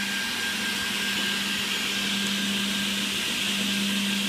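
RBWOOD RB 50A-5 automatic edge banding machine running with no panel in it: a steady motor whir with a constant low hum and a hiss over it.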